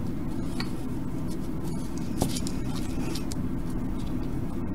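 A steady low background hum with a few small clicks and ticks of LED legs and the soldering iron being handled, one sharper click about two seconds in.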